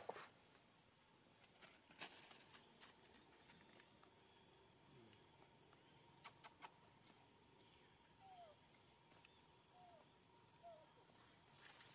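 Quiet forest ambience: a steady high insect drone, with a sharp click at the very start and a few faint ticks of movement. In the second half there are three short, falling chirps.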